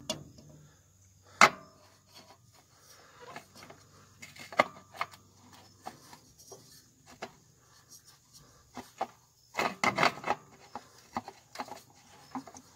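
A new spin-on oil filter being screwed onto its mount by hand: scattered clicks and scraping rubs, with a sharp click about a second and a half in and a quick run of clicks and scrapes near the end.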